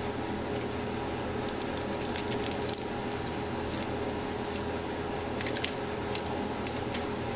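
Scattered small crinkles, scrapes and clicks as thermal tape is peeled and scraped off an amplifier's metal heatsink, over a steady background hum.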